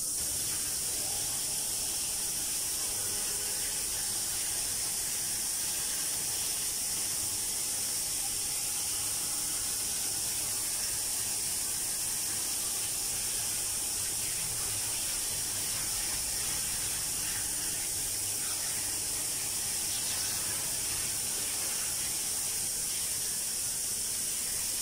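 Pressurised water jet spraying onto perforated trays of surgical instruments in a stainless steel sink: a steady hiss of running water, pre-rinsing blood off the instruments before ultrasonic cleaning.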